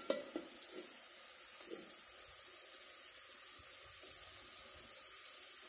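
Chopped onions sizzling in hot cooking oil in a sufuria cooking pot: a steady soft hiss with a few light clicks near the start.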